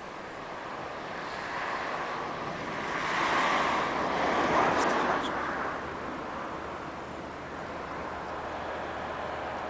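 A whooshing rush of wingbeats from a huge flock of thousands of starlings wheeling overhead. It swells to a peak a few seconds in, then fades back to a steady hiss.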